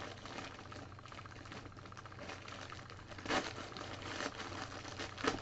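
Rustling and handling of packaging as a subscription box is opened, a soft steady crackle with a louder rustle about three seconds in and another near the end.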